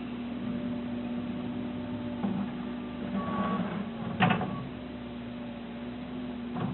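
2009 New Holland L175 skid steer's engine running steadily as the machine works, with a single sharp knock about four seconds in.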